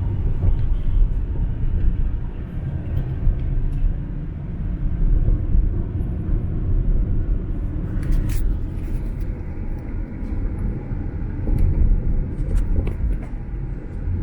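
Car driving along a city street: a steady low rumble of road and engine noise, with a few brief clicks, the sharpest about eight seconds in.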